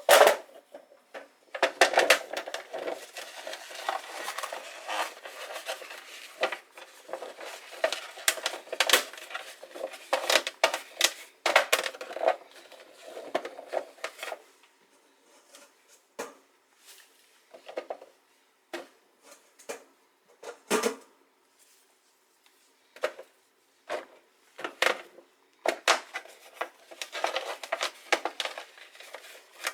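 Irregular clatter of kitchen items being handled: clicks and knocks of dishes, containers and utensils set down and moved, with short rustling stretches. The sounds come densely at first and thin out later, with a brief pause before they pick up again near the end.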